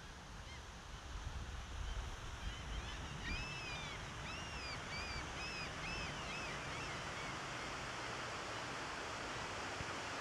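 Nugget Falls, a glacier-fed waterfall, rushing in a steady roar that thickens about a second and a half in. Over it a bird gives a run of short, high, arched chirps in the middle.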